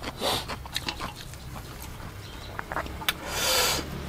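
Fresh herb sprigs and lettuce leaves rustling and crinkling as they are picked and bundled by hand, with small crisp clicks and a louder crinkling rustle about three and a half seconds in.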